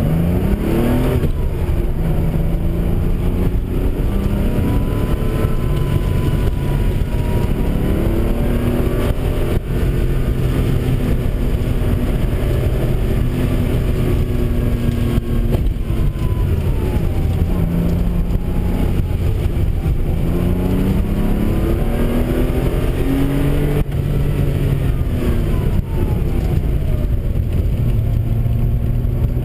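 A car engine heard from inside the car while it is driven hard through an autocross course. The engine note climbs steeply in the first second or so, then keeps rising and falling in pitch as the car accelerates and slows around the cones.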